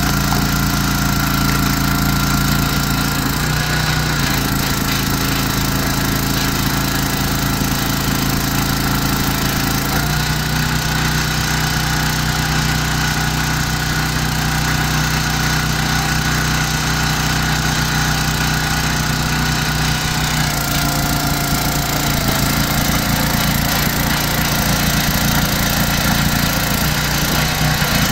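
Small gasoline engine of an Oregon hydraulic log splitter running steadily while the splitter is worked. Its note shifts several times, about 4, 10 and 20 seconds in.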